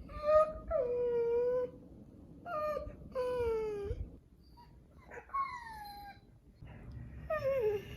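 A pet dog whining in a series of about six drawn-out, high-pitched calls, the longest about a second, the last two sliding down in pitch.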